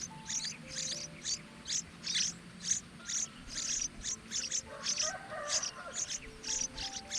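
Baby birds in the nest chirping: a steady run of short, high chirps, about three or four a second, typical of nestlings begging to be fed. Soft background music plays underneath.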